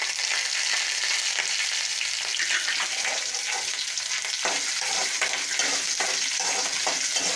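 Chopped green chillies and chana dal sizzling in hot coconut oil in a metal kadai, stirred with a metal ladle. The ladle scrapes the pan in short strokes that come more often in the second half.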